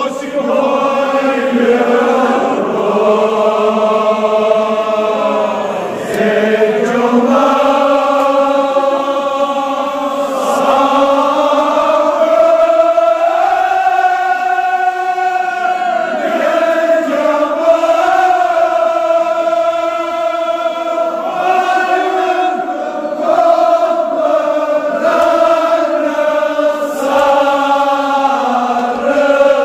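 Men's voices chanting a Kashmiri marsiya, a mourning elegy, together, drawing out long notes that slowly rise and fall.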